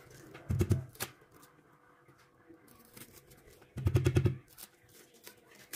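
Large kitchen knife slicing kernels off a corn cob and knocking onto a wooden cutting board: a short crackling cut about half a second in and another about four seconds in, with a single light tap in between.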